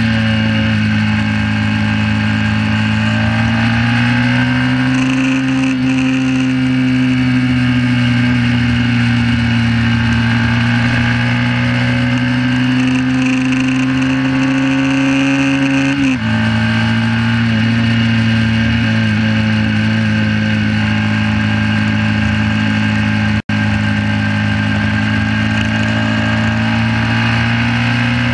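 1968 Honda CB350's air-cooled parallel-twin engine running hard at high revs under racing load, its pitch holding steady, with a sudden dip in pitch about sixteen seconds in. The sound cuts out for a split second about twenty-three seconds in.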